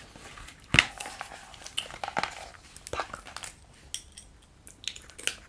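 Irregular sharp clicks and taps close to the microphone, the loudest a little under a second in, with a few softer ones spread through.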